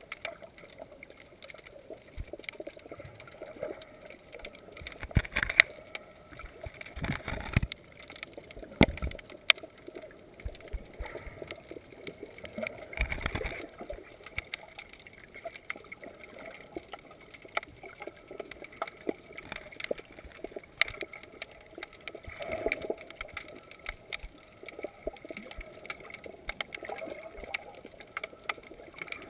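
Underwater sound picked up by a submerged GoPro: a low, muffled wash of water with many scattered sharp clicks and crackles, and a few louder swishes of water movement in the first half.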